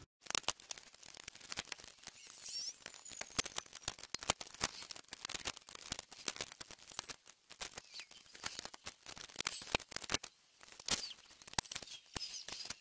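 Sped-up time-lapse workshop sound of a dirt bike being taken apart, the fuel tank coming off: a dense run of quick clicks and clatters from tools and parts, with a few brief high chirps where sounds are fast-forwarded.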